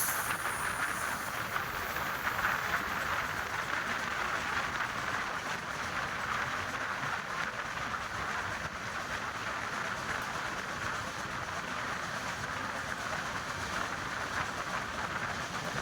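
Passenger express train running on the rails, a steady noise of wheels and coaches in motion.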